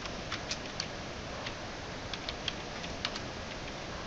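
Computer keyboard keystrokes: about a dozen short, irregular clicks as a terminal command is typed, over a steady hiss.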